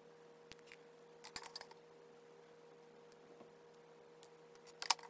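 Light metallic clicks and taps of a precision screwdriver and tiny screws on an iPhone 7 display's metal back plate: a few short clusters, one about a second in and a louder one near the end, over a faint steady hum.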